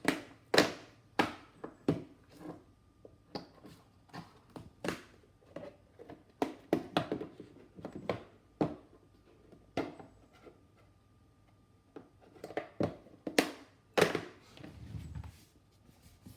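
A run of about twenty irregular knocks, taps and clicks, loudest near the start and again about two-thirds of the way through, over a faint steady high tone.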